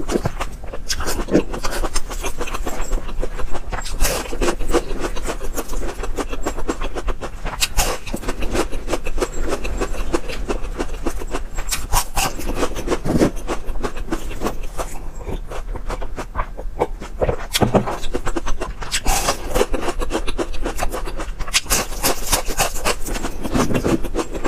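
Close-up crunching and chewing of crispy fried pastry rolls: a dense, crackling run of crunches with louder bites every few seconds.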